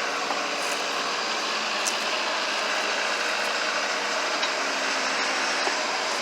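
Allis-Chalmers 715C backhoe's engine running steadily, with a few faint clicks.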